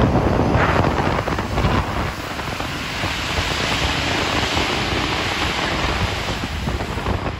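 Rushing running noise heard inside a rubber-tyred Alstom NS-16 metro car in motion, swelling and turning hissier in the middle as a train passes close alongside on the next track.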